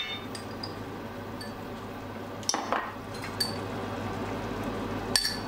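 Ground beef, onion and tomato sauce sizzling and bubbling in a stainless steel frying pan, with a few sharp knocks of a wooden spatula against the pan.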